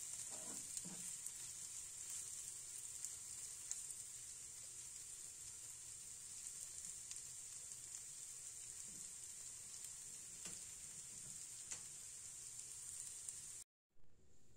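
Prawn fry sizzling faintly in a nonstick frying pan, with a few light taps of a wooden spatula stirring it. The sizzle cuts off abruptly near the end.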